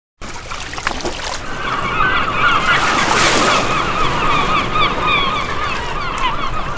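A flock of birds calling over and over, many short honking calls at once, over a steady rushing background. There is a swell of noise about three seconds in.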